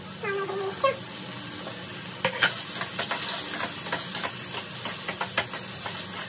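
Chopped tomato sizzling in a frying pan as a spatula stirs it, with frequent clicks of the spatula against the pan.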